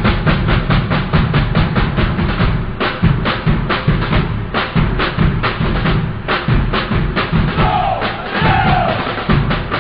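Intro music driven by fast, steady drum hits, about five a second, with a short sliding tone near the end.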